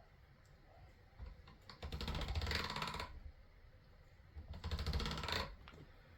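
Hand-cranked pasta machine rolling a sheet of polymer clay: two spells of cranking, about a second each, with a rapid clicking rattle from the gears and rollers.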